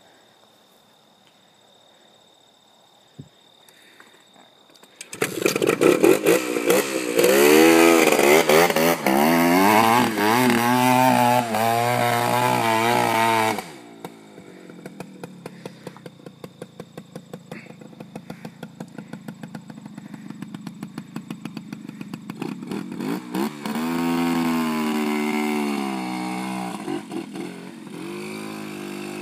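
Dirt bike engine kick-started, catching about five seconds in, then revved hard with its pitch rising and falling. Near the middle the level drops suddenly to a quieter, steady running with a fast firing beat, revving up again a few seconds before the end.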